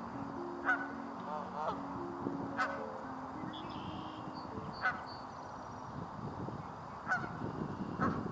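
Geese honking: about five single honks, one every second or two, over soft background music with held low notes.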